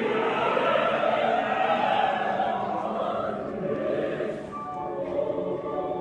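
Choir singing in French, holding sustained chords in several parts, growing softer and thinner about two-thirds of the way in.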